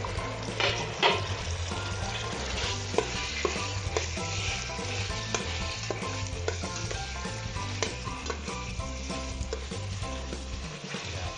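Shrimp sizzling in hot oil with sautéed garlic, onion and ginger in a stainless steel pot, stirred with a spatula that clicks and scrapes against the pot now and then.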